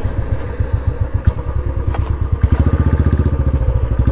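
Motorcycle engine running at low revs, settling into a steady, even beat from about halfway through, with a couple of sharp clicks before that.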